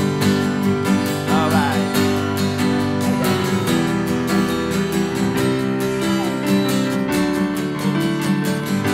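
Acoustic guitar strummed in a steady rhythm, an instrumental stretch between sung choruses.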